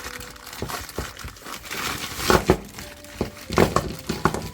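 Crinkling and rustling of packaging wrap as socket-style hex bits are handled, in irregular crackles with louder clusters about two and a half seconds in and again near the end.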